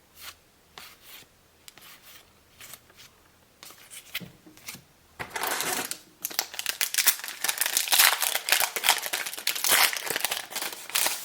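A few light clicks of handling, then from about five seconds in a trading-card booster pack wrapper is torn open and crinkled, a dense crackle that is loudest a few seconds later.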